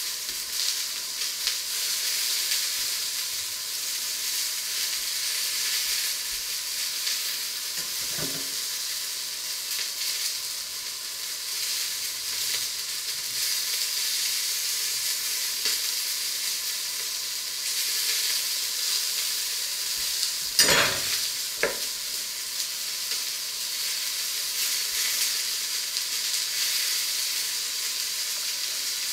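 Food frying in a pan on the stove, a steady sizzle. Two short knocks break in, about eight seconds in and again, louder, about twenty-one seconds in.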